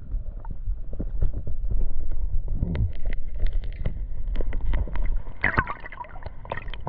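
Water splashing and sloshing in short irregular bursts around a hooked bass, over a heavy low rumble of wind and handling on the microphone.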